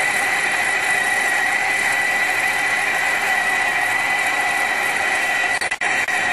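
Machine tool running at metal cutting, a steady high-pitched whine over a hiss, broken by a few short dropouts near the end.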